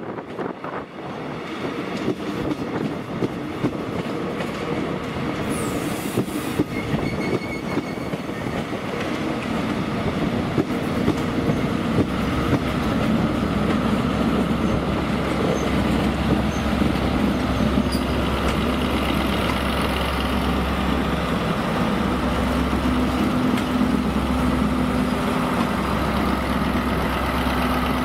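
Caledonian Sleeper coaches rolling slowly past, with wheel and rail noise and scattered knocks. The sound grows louder as the Class 73 locomotives come up, and from about halfway through their engines add a steady low hum.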